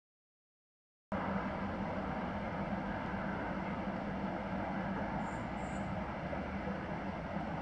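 About a second of dead silence, then a steady, even rushing outdoor noise with a low hum underneath.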